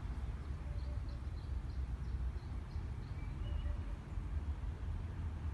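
Outdoor ambience: a steady low rumble with a quick run of faint, high bird chirps in the first three seconds and a brief whistled note a little later. No church bell is heard ringing.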